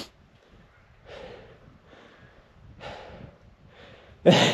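A man breathing hard, out of breath from a steep rock scramble: a few soft breaths, then a loud, sharp breath near the end.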